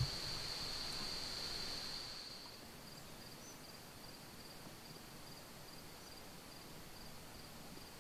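High-pitched insect trilling, steady at first, then fading about two seconds in to faint chirps about three a second.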